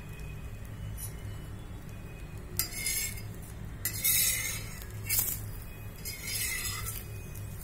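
Paratha roasting on an iron tawa: four short hissing bursts in the second half, with sharp clinks of a metal utensil against the pan.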